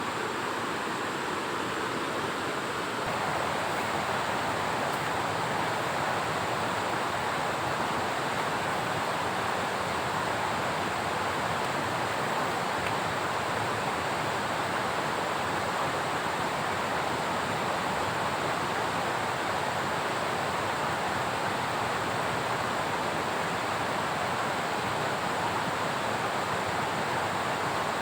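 Steady rushing water noise, a dense even hiss from heavy water, rising slightly in level about three seconds in.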